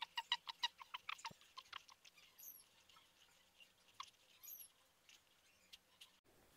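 A rapid run of short, high, squeaky chirps, about six a second, fading out about two seconds in, then a few scattered faint chirps: a small animal calling.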